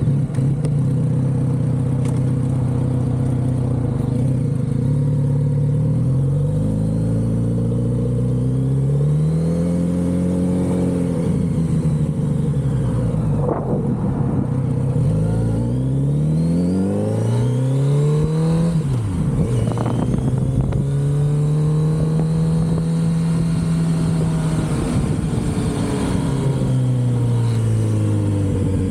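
Kawasaki Z900RS's inline-four engine through its stock exhaust on the move: it runs steadily at first, then its pitch rises and falls again and again as it accelerates and slows, holds steady for a few seconds later on, and drops near the end.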